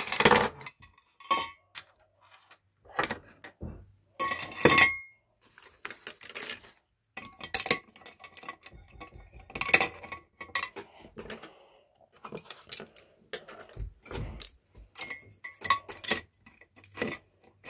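Pens, markers and scissors clattering against each other and on a wooden desk as they are gathered up and dropped back into a pen pot, in irregular clicks and clacks.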